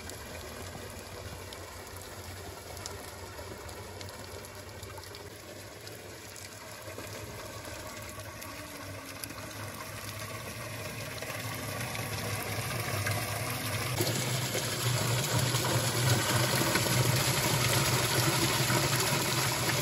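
A thick jet of pumped water gushing and splashing into a plastic drum, over a Massey Ferguson tractor engine running steadily. The water grows louder over the second half.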